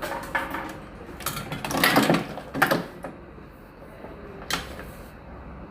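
Hands handling fishing line and tackle while tying a knot: a few irregular bursts of rustling and clicking, loudest about two seconds in, with one more sharp rustle about four and a half seconds in.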